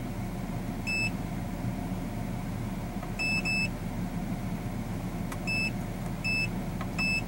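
Short, high electronic key beeps from the Autel AutoLink AL539 scan tool's built-in speaker as its menu buttons are pressed: six in all, two of them in quick succession. Under them runs the low, steady rumble of the car's engine idling.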